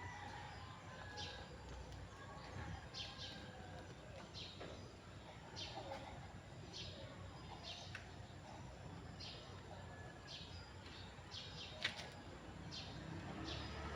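Small birds chirping faintly, with short, high chirps repeating about once or twice a second, and one sharp click near the end.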